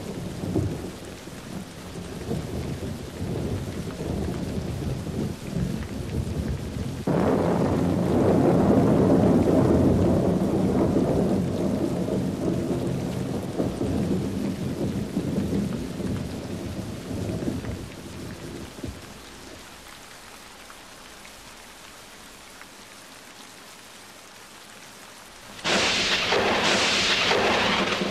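Thunderstorm recording of rolling thunder over rain. A loud peal begins suddenly about seven seconds in and rumbles away over some ten seconds, leaving a quieter stretch of rain. A sharp, close crack of thunder breaks in near the end.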